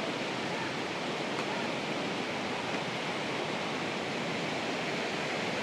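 Flowing water cascading with a steady, even rush, unbroken throughout.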